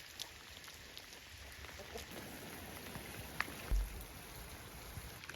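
Light rain falling: a steady hiss with scattered drops tapping close by, and one brief low thump a little past the middle.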